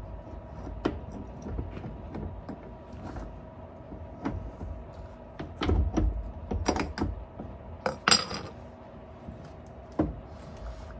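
Irregular hammer taps and knocks, metal on metal, on the old rear driveshaft's U-joint and yoke of a Jeep TJ to knock the shaft loose. The loudest strikes come a little past halfway, one of them with a brief ring, and a last knock comes near the end.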